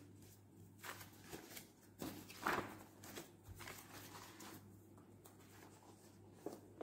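Faint room tone with a steady low hum and a few soft, scattered taps and rustles, the clearest about two and a half seconds in and another near the end.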